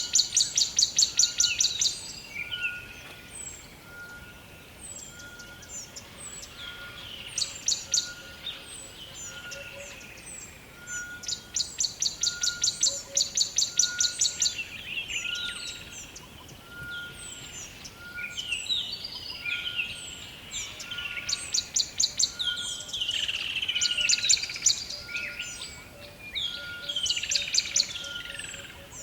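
Rainforest ambience of many birds calling together: overlapping chirps and whistles, a rapid pulsing trill that comes and goes in bursts of a few seconds, and a short note repeated steadily about once a second.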